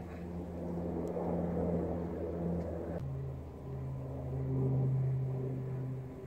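A steady low mechanical hum that shifts abruptly to a different pitch about three seconds in.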